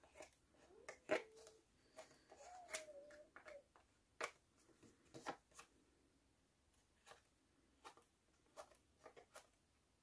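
Faint, scattered taps and rustles of paper and craft tools being handled, a dozen or so light clicks with quiet gaps between them.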